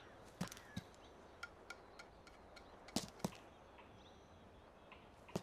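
A quiet stretch with a few faint, scattered knocks and clicks at uneven spacing, the sharpest a pair about three seconds in.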